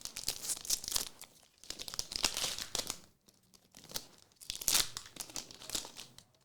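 Foil trading-card pack being torn open and its wrapper crinkled, in three spells of crackly rustling with short pauses between them.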